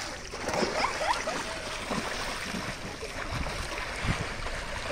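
Water splashing and churning in a backyard swimming pool as children thrash and kick their legs out of the water, with a few short children's shouts about a second in.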